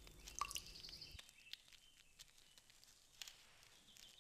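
Faint drips and small splashes of water as storks fish in shallow water, with a few faint, high, thin calls early on; otherwise near silence.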